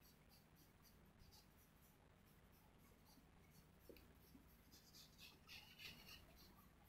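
Pencil scratching on drawing paper in quick, short hatching strokes. It is faint, and louder for a second or two near the end.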